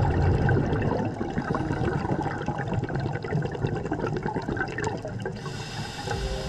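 Scuba diver's exhaled bubbles rushing and crackling underwater, with a low rumble, then a higher steady hiss coming in about five seconds in.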